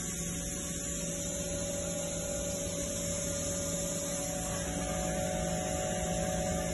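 Steady hum with a few constant tones from a powered-up Haas OM-2A vertical machining center standing idle, its spindle stopped.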